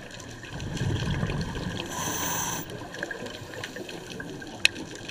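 Muffled underwater sound inside a GoPro housing on a scuba dive: a rush of the diver's regulator breath and bubbles about a second in, ending in a short hiss, over scattered faint clicks, with one sharp click near the end.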